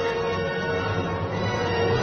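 Background music of long held notes over a low drone.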